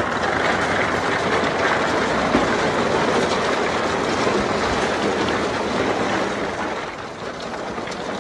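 A load of crushed stone sliding and rattling out of a tipper truck's raised steel body onto a heap. A steady rushing rumble that eases off near the end.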